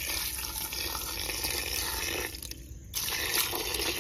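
A stream of water pouring into a steel pressure cooker and splashing onto goat bones and masala. It breaks off for about half a second a little past halfway, then resumes.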